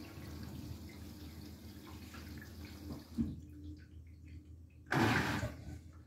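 Beko WTK104121W washing machine early in its wash: water hisses into the drum over a steady hum, then cuts off suddenly after a short knock about three seconds in. Near the end comes a loud splash of wet laundry sloshing as the drum turns.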